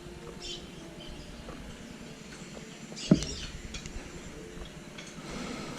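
Low background noise with faint scattered small clinks and one sharp click about three seconds in.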